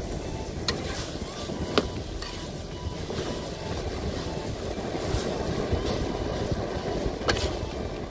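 Long metal spatula stirring and turning rice in a steel wok, with a few sharp clinks of metal on the pan, over a steady low background rumble.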